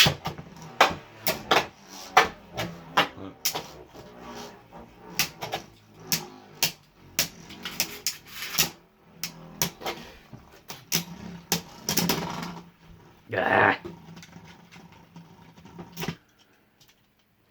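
Beyblade Burst spinning tops clashing in a plastic stadium: many sharp clacks of the tops hitting each other and the stadium walls, which stop suddenly about sixteen seconds in.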